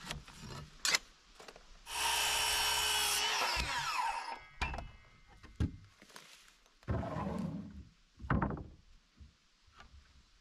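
Ryobi battery-powered circular saw making a short crosscut through a pine board. The motor whines steadily through a cut of about a second and a half, then the blade winds down in a falling whine. A few wooden knocks and a scrape follow as the cut pieces are handled.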